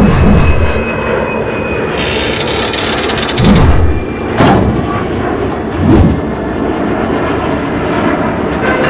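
Recreated sound effects of a Boeing 777's right engine failing in flight after a fan-blade fracture: a steady jet roar broken by four heavy booms. A loud hissing rush comes in about two seconds in and lasts about a second and a half.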